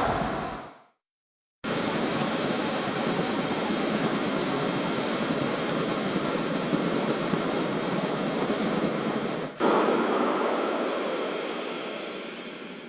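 Hailstorm on a street: a dense, steady hiss of hailstones hitting the ground. It fades out about half a second in and drops to silence for about a second, then returns at a steady level. It breaks off briefly about nine and a half seconds in and then slowly fades.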